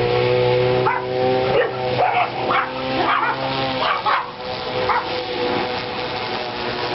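A dog barking repeatedly in short, sharp barks, about seven of them, thinning out after about five seconds in, over the steady electric hum of a small solar lawn mower.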